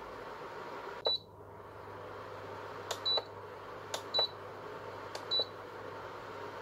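Induction cooktop's control panel beeping as its buttons are pressed: four short high beeps, the last three each just after a soft button click. A steady whir, with faint humming tones in it, starts after the first beep and keeps running as the cooker switches on.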